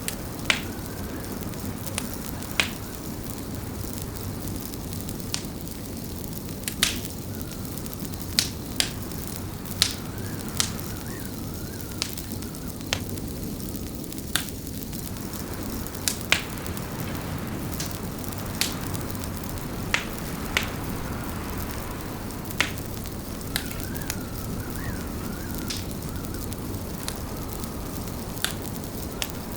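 Fireplace crackling: sharp pops and snaps at irregular intervals, about one every one to two seconds, over a steady low rumble. A faint wavering whistle comes and goes now and then.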